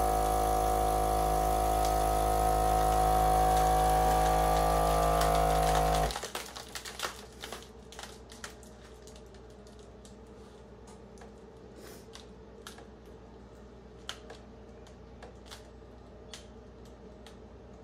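Countertop vacuum sealer's pump running steadily as it draws the air out of a plastic bag, its pitch rising slightly as the bag is pulled down, then cutting off suddenly about six seconds in. Faint scattered clicks follow.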